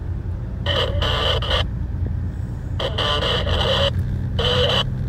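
Steady low engine and road rumble inside a car's cabin. Over it come several short bursts of a thin, crackly voice from the race radio.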